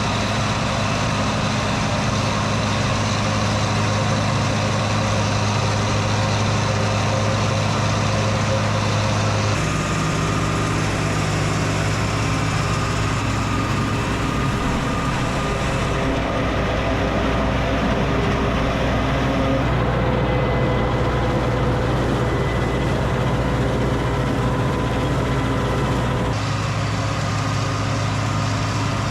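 Farm tractor engines running steadily, in several stretches whose pitch and tone change abruptly about ten seconds in, a little past halfway and near the end.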